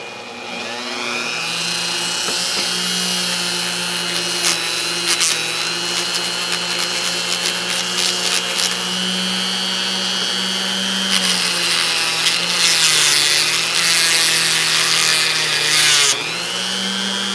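Small power tool motor spinning a little wheel against a steel socket to clean off rust and grime, with scraping and rattling as the socket is worked on the wheel. It spins up about a second in and runs steadily. Its pitch sags for a few seconds past the middle, then it cuts out briefly and picks up again near the end.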